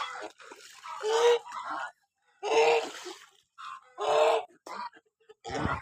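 Lionhead geese honking: four harsh, pitched honks about a second and a half apart.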